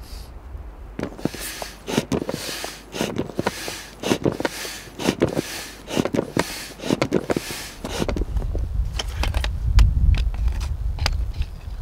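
Tent fabric rustling and crinkling in repeated bursts of handling, with sharp clicks, as a canvas tent is pitched. Later a low rumble comes in, with a few clicks and rustles as the canvas seat is fitted onto a wooden folding camping chair.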